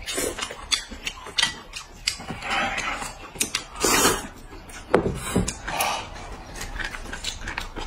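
Two people slurping noodles from bowls, mixed with short sharp clicks of chopsticks against the bowls.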